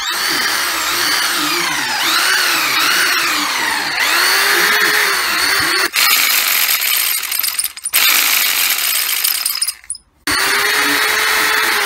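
Hitachi FCJ55 jigsaw running unloaded in several runs, its motor speed rising and falling, with short breaks between runs. Part of it is the jigsaw before its gears were repacked with grease, when it sounded rough because the original grease had dried up.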